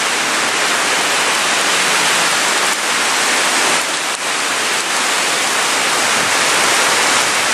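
Heavy sudden downpour, a cloudburst, hissing steadily as rain pours onto paved ground.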